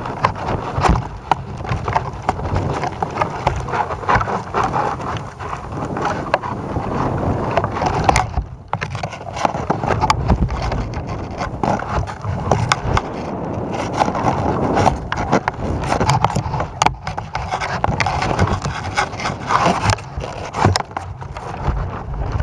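Rumbling wind on the microphone of a panoramic camera rig hanging from a tethered balloon, with frequent knocks and scrapes from the rig as it swings on its lines.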